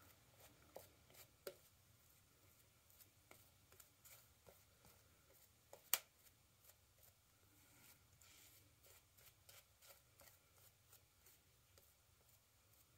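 Faint soft scratching and crackling of a lather-loaded shaving brush worked over the face and neck, with small clicks throughout and one sharper click about six seconds in.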